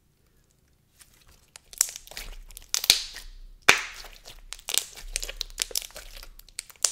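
Thick, glossy white slime (MOMO Slimes' Lychee Chew) being stretched, folded and squeezed by hand, giving off a run of crackles and several sharp pops starting about a second in. It is described as really poppy, a stiff, heavily activated slime.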